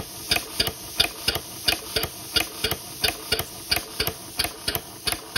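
Snap-action poppet valve gear of a scratch-built model mill engine running on compressed air, its valves clicking shut in a steady rhythm of about three sharp clicks a second. The snap valves are pretty noisy.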